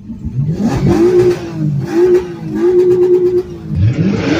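Car engine revved about four times, pitch climbing, holding and dropping back each time, the third rev held for about a second; the car runs a modified exhaust.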